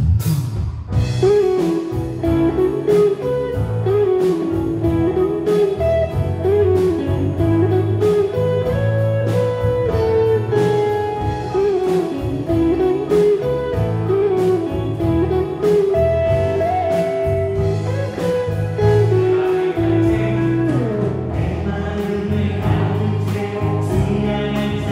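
Live worship band playing a song on drum kit, electric guitar, electric bass and keyboards, with a sliding melody line carried over the band.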